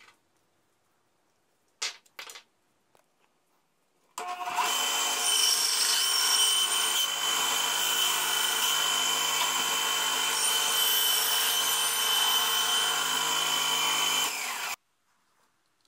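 Benchtop band saw running and cutting a small block of wood: a steady motor hum with a high whine. It starts about four seconds in and stops suddenly near the end, after a couple of light knocks.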